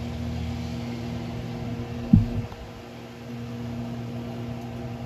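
Steady hum and low rumble over a lit gas stove burner, with one sharp thump about two seconds in as metal tongs turn a piece of silver clay on the wire mesh.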